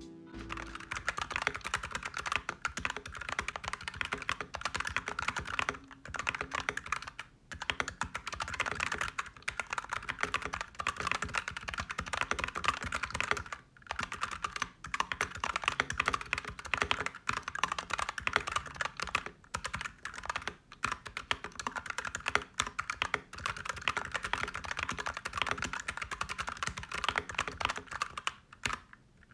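Continuous fast typing on a mechanical keyboard with factory-lubed KK Light Wave V2 (Candy Jade Green) linear switches, an aluminium plate and MT3 ABS keycaps, heard through an iPhone 8's microphone. The keystrokes run as a dense clatter with a few short pauses.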